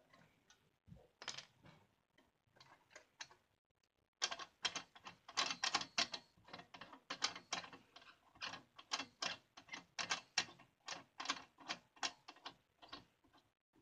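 Quick, uneven mechanical clicking from a part of a scroll saw being worked by hand, a few clicks at first, then several a second from about four seconds in. The saw's motor is not running.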